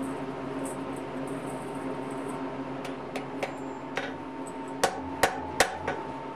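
Hand hammer striking a hot iron bar on an anvil, forging the strap of a ladle handle: a few lighter knocks starting about three seconds in, then sharper blows about three a second with the anvil ringing.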